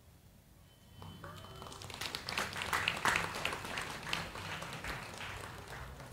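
After a brief lull, an audience applauds, the clapping building from about two seconds in, with voices mixed in.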